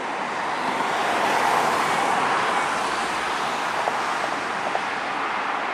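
Jet engine noise from a Boeing 737-800's CFM56-7B turbofans as the airliner rolls out on the runway after landing. It swells about a second in and then holds steady.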